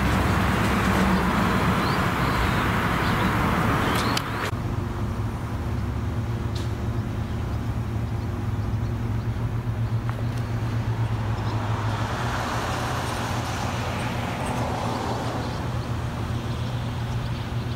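Diesel locomotive engine idling. It is loud and close for about four seconds, then changes abruptly to a quieter, steady low hum.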